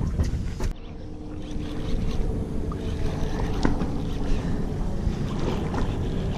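Wind rumbling on the microphone aboard a small boat at sea, with scattered light clicks and knocks and a faint steady hum for a couple of seconds in the middle.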